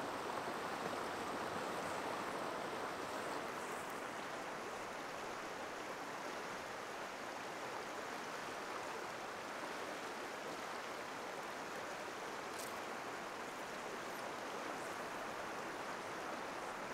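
Shallow river running steadily over a stony bed, an even rushing of water.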